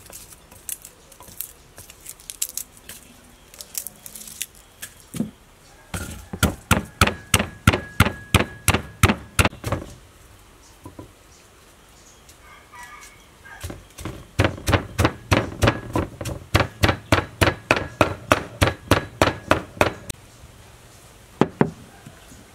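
A wooden pestle pounding garlic in a mortar: two runs of steady, regular strikes, about four a second, with a pause between them. A couple of separate knocks come near the end.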